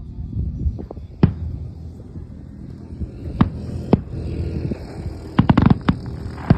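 Fireworks display: aerial shells bursting with sharp bangs, one about a second in, two more around three and a half to four seconds, then a quick cluster of bangs near the end, over a steady low rumble.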